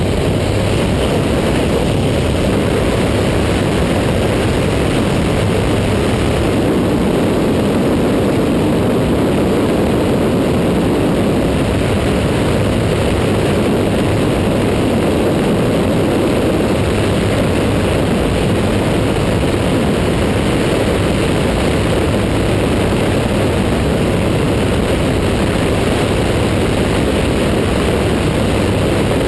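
Paradise ultralight airplane's engine and propeller droning steadily in flight, heard from inside the cockpit. The loudness stays level throughout.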